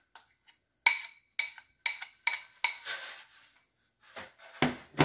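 A ceramic bowl knocked repeatedly against the rim of a steel mixing bowl to empty out gram-flour batter: sharp knocks about two a second, each ringing briefly.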